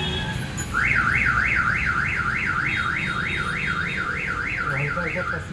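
Car alarm siren warbling: a loud tone sweeping up and down about three times a second. It starts under a second in and stops shortly before the end.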